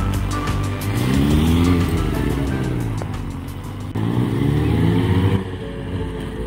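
Suzuki GSX-R1000 inline-four engine revving up and dropping back twice as the bike is ridden through tight low-speed turns, with music underneath. About five seconds in the engine sound drops away and steadier music-like tones take over.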